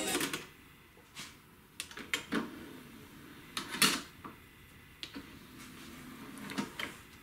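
Philips FW68 mini system's CD tray being worked: a front-panel button press, the tray mechanism sliding out, a disc set into the tray with a sharp clatter about four seconds in, and the tray motor drawing it back in with a clunk near the end.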